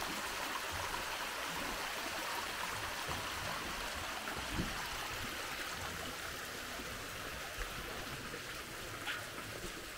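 Steady rushing sound of running water, with a faint knock about halfway through.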